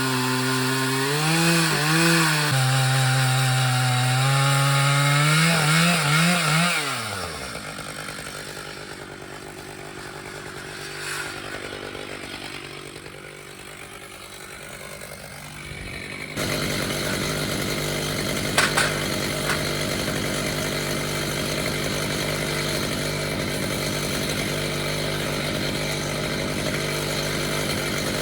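A Stihl MS 881 two-stroke chainsaw running at high revs in a log on a chainsaw mill, its pitch wavering under load, then winding down and stopping about seven seconds in. After a quieter stretch, a steady hum starts abruptly past the middle.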